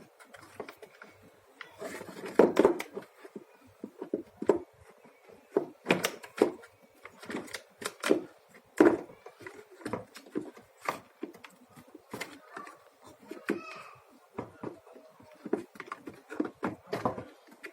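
Irregular clicks and knocks from the parts of a vacuum cleaner being handled and fitted back together during reassembly after a motor repair.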